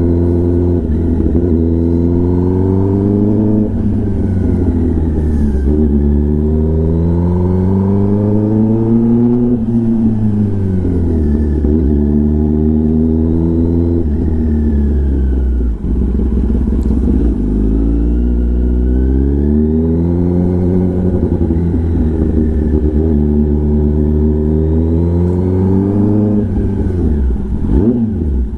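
Kawasaki ZX-10R inline-four engine breathing through an SC-Project titanium exhaust while the bike is ridden. The exhaust note climbs in pitch over a few seconds and then drops, again and again, as the engine accelerates and eases off.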